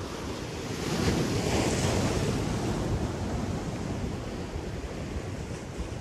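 Sea waves breaking and washing over the granite boulders of a jetty, swelling to a louder surge about a second in and then easing to a steady wash. Wind buffets the microphone throughout.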